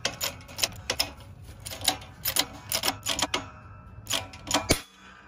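Shop press pushing a rear needle bearing out of an Eaton supercharger housing through a copper pipe driver: sharp irregular clicks, about three a second, over a low rumble. A loud click comes just before five seconds in, then the clicking and rumble stop as the bearing goes through.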